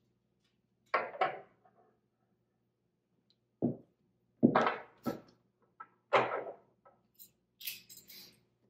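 Metal flatware being set down on a table at place settings: a series of short knocks and clinks, about half a dozen, the loudest about four and a half seconds in, with lighter metallic clinks near the end.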